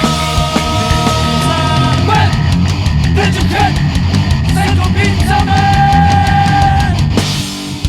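Heavy rock band playing with distorted guitars, bass and drums, with long held high guitar notes over the top. The band thins out briefly near the end.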